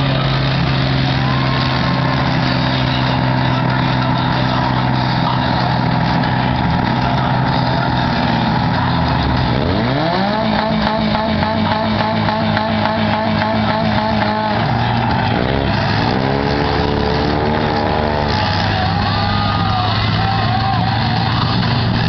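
Several demolition derby cars' engines running at once, with one revving up sharply about ten seconds in and engines revving again between about fifteen and eighteen seconds.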